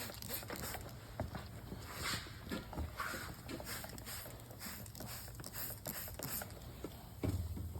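Hand spray bottle squirting a soapy shampoo solution onto a tubeless tire to find leaks: a few short hissing squirts among scattered small clicks and taps.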